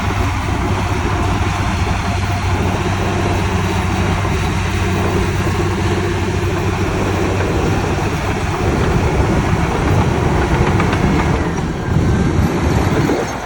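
Heavy diesel engine of an earthmoving machine running steadily under load, with a steady low hum and a broad mechanical noise over it.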